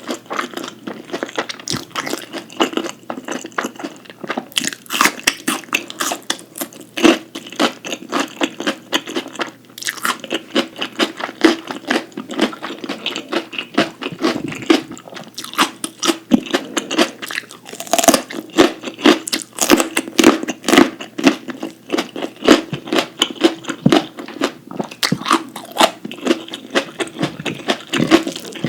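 Close-miked eating: a person chewing with a dense run of crisp crunches and wet chewing sounds.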